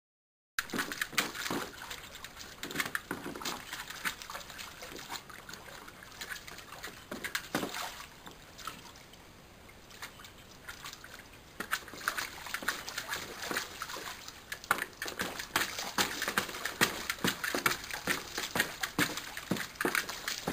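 A dog splashing and sloshing water in a plastic paddling pool while pushing a ball around in it: irregular splashes and splatters, starting just after a moment of silence, easing off for a few seconds in the middle and growing busier and louder near the end.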